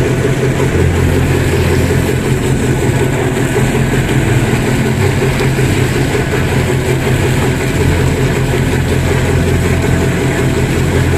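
Boat engines running with a steady low drone.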